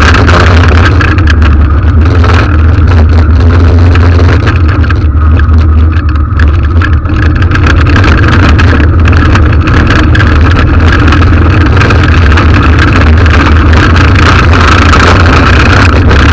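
Engine of a military armoured vehicle running steadily as it drives along a road: a loud, continuous low rumble.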